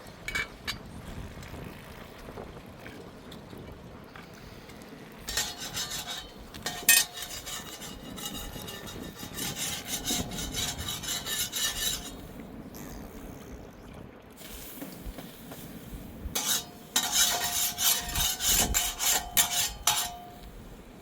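Rapid, rhythmic scraping on a hard surface, in two spells: one starting about five seconds in and lasting around six seconds, the other near the end lasting about four seconds.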